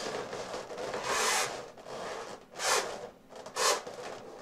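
A pen writing on an inflated latex balloon, its tip rubbing and squeaking across the rubber in separate strokes: a longer one about a second in, then two short ones.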